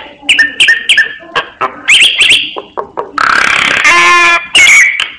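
Black myna (sáo đen) singing a varied, fast run of short whistles and sharp clicks. About two-thirds through comes a longer harsh, buzzing call that ends in a creaky rattle.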